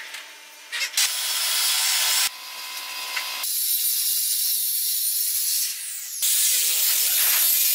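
A few light wooden knocks, then a handheld circular saw running and cutting through pine boards: the blade's rasp through the wood over the motor's whine. The sound changes abruptly several times.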